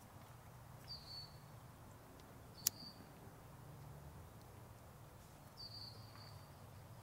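Quiet outdoor ambience with three short, high bird chirps, about a second in, just before three seconds and near six seconds. A single sharp click comes just before three seconds.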